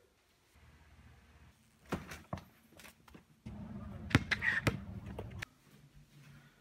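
A few scattered knocks and thumps, then a basketball bouncing twice on an outdoor court, two sharp smacks about half a second apart.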